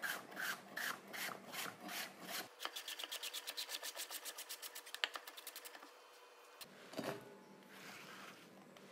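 Chef's knife chopping apple on a wooden cutting board: a few spaced cuts, then a quick, even run of about eight chops a second. About seven seconds in comes a short clatter as the diced apple goes into a bowl.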